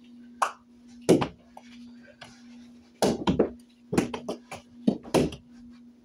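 A quick series of thrown objects landing and knocking in a small room, the loudest hit about a second in and a flurry of hits from about three seconds on. A steady low hum runs underneath.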